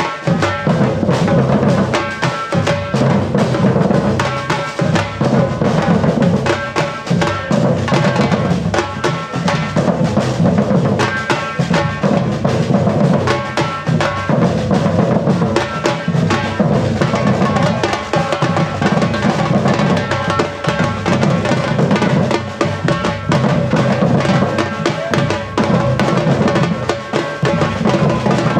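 Afro-Brazilian percussion ensemble drumming a continuous, driving groove: deep drums underneath dense, rapid strokes, with no pause.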